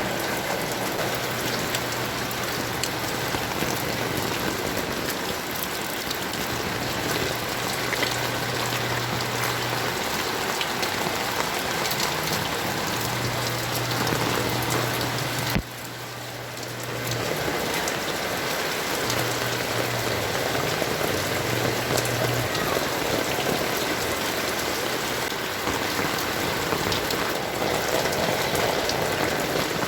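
Heavy rain falling steadily. About halfway through it drops suddenly in level and builds back up over a couple of seconds.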